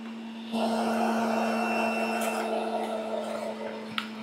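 Breville Juice Fountain Elite centrifugal juicer running with a steady motor hum. About half a second in it grows louder with a noisy shredding sound as leafy greens are fed down the chute onto the spinning cutting disc, easing off near the end.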